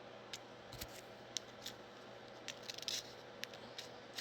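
Light plastic clicks and ticks from a Nissan Rogue key fob's opened case being handled, scattered single clicks with a quick cluster near three seconds in.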